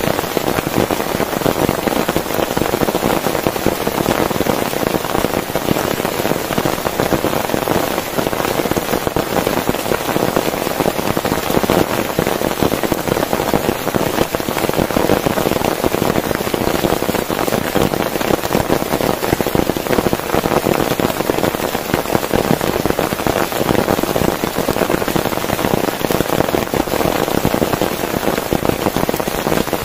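Heavy rain falling steadily on a tent, a dense, even patter of drops.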